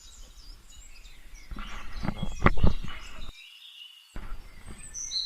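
Birds chirping in forest. About two seconds in comes a louder spell of knocks and rustling, and then the low sounds drop out for about a second.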